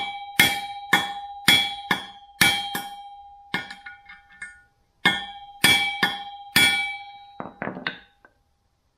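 Hammer striking a steel bearing driver to knock a pilot bearing into the centre of a lightweight flywheel: sharp metallic taps about two a second, each ringing on with a clear tone. There is a short pause partway through, and lighter taps come near the end as the bearing seats.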